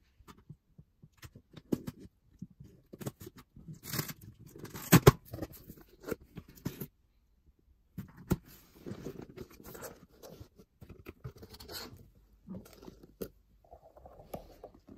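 Corrugated cardboard mailer box being opened by hand: the lid and flaps scrape, creak and rustle in irregular crackles, with a sharp snap about five seconds in.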